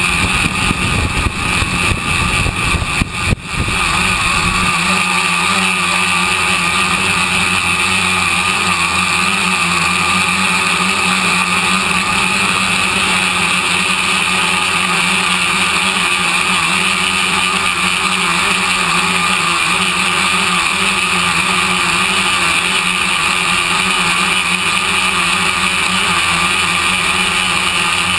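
Tricopter's electric motors and propellers running steadily in flight, a whine with several held tones. A low, gusty rumble sits under it for the first four seconds or so, then stops.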